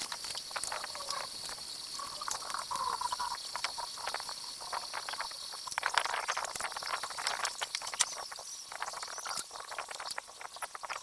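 Handheld two-way radio crackling and clicking, with a faint steady high whine and a few short tones, while it runs from the repaired 12 V DC power supply.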